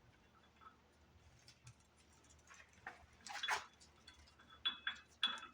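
Faint ticking of hand tools on the engine, then louder metal clinks and clatters from about halfway in. A few of the clinks carry a short metallic ring.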